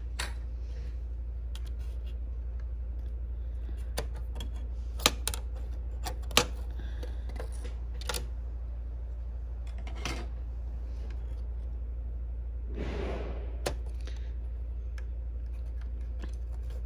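Scattered sharp clicks and snaps as the white plastic ejector latches are worked and the daughter cards are pulled from their edge connectors on a Midas Heritage 2000 VCA/automation module, with a brief scraping rustle about thirteen seconds in. A steady low hum sits underneath.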